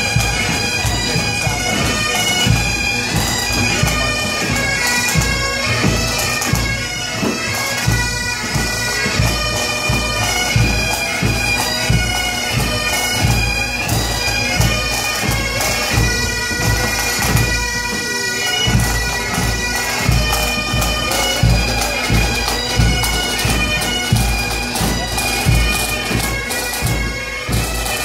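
Pipe band playing on the march: Great Highland bagpipes sounding a melody over their steady drones, with a bass drum beating time.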